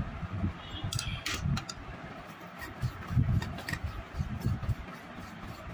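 Soldering iron tip being jabbed and wiped in a brass-wool tip cleaner: a run of short, scratchy clicks, with low knocks from handling underneath.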